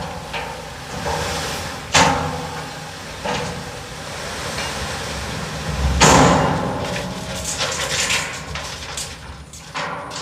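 JCB backhoe loader working, its diesel engine running under heavy clanks and thuds of material being handled. One sharp bang comes about two seconds in and the loudest, deepest thud about six seconds in, followed by a run of smaller knocks and rattles.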